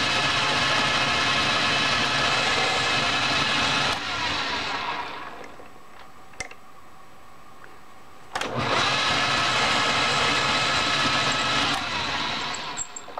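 Clausing metal lathe running under power with a steady whine, switched off about four seconds in and spinning down to a stop. After a single click in the pause, it starts up again about eight seconds in, runs for about three seconds, then is switched off and spins down again.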